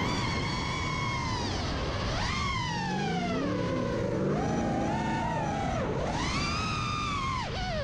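FPV racing quadcopter's brushless motors and props whining, the pitch swooping up and down with the throttle and dipping sharply several times, over a low rumble.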